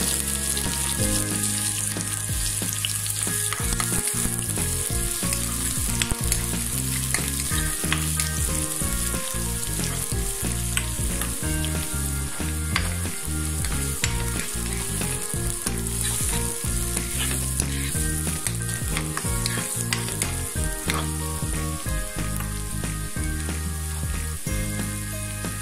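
Sliced onions sizzling and crackling in hot oil in a non-stick wok, stirred now and then.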